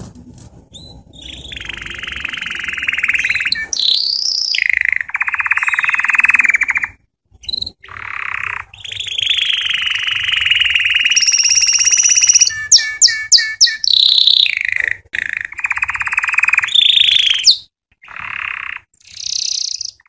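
Canary singing: long rolling trills broken by whistled, gliding phrases, with a quick run of sharp notes about two-thirds of the way through.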